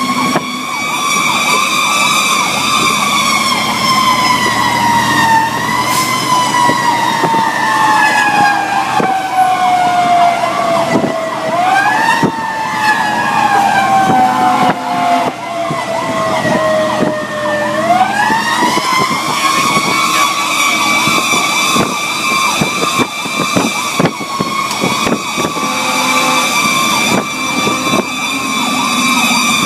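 Fire engine siren heard from inside a responding engine's cab: a high wail that slowly falls in pitch, is pushed back up briefly about 12 seconds in, falls again, then winds back up around 18 seconds and holds high, with a faster warbling siren underneath.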